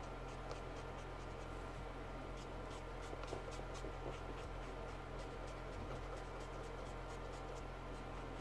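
Winsor & Newton Brushmarker alcohol marker scratching across paper in quick, repeated short strokes, colouring in a filled area.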